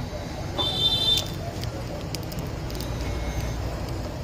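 A dog eating from a plastic bowl, with a few short clicks from its mouth and the bowl, over a steady low background rumble. A short high-pitched tone sounds about a second in and is the loudest thing.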